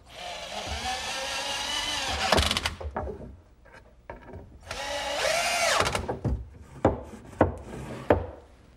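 Power drill with a screwdriver bit driving screws into a small plywood block. The motor whines in two spells, the first about two and a half seconds and the second about a second, its pitch bending up and then down as each screw runs in. A few sharp clicks follow each spell.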